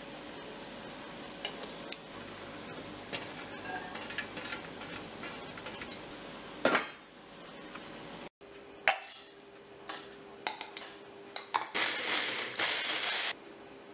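Kitchen sounds over a few quick cuts: a steady low simmer of a pot of water, a loud knock of something dropping into a steel pot, and scattered clicks of utensils. Near the end an electric mini chopper whirs loudly for about a second and a half, then stops abruptly.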